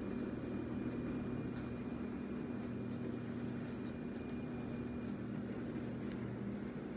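Steady low hum, with a faint high-pitched whine on top that stops about five seconds in.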